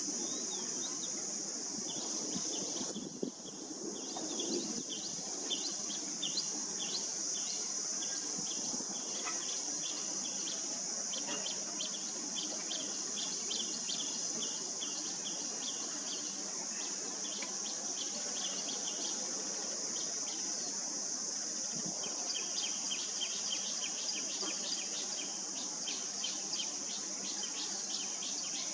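A steady high-pitched insect drone fills the background. Over it a black-collared starling chick gives long runs of short, rapidly repeated begging calls, pausing for a few seconds around the middle.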